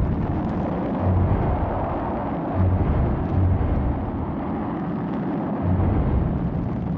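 A powerful engine's loud, steady roar with a deep rumble that swells several times, starting suddenly just before.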